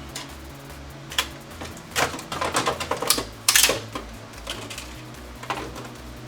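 A sticker being scraped and peeled off a PlayStation 5's plastic casing: a run of scratchy clicks and rasps through the middle, then a few single clicks.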